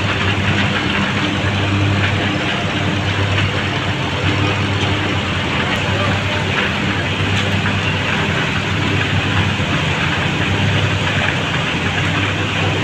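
Diesel engines of a farm tractor and a backhoe loader running hard under load as the loader pushes a sugarcane-laden trailer through deep mud. It is a loud, steady low drone that swells and eases every second or two.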